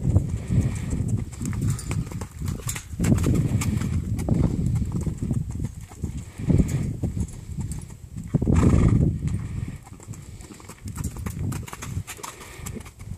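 Hoofbeats of a horse cantering laps around a dirt round pen: an irregular run of dull thuds. About eight and a half seconds in there is a louder burst lasting about half a second.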